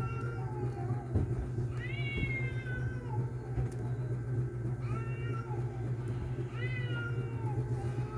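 Repeated short animal calls, each about a second long, rising then falling in pitch, three in a row with gaps of about two seconds, over a steady low hum.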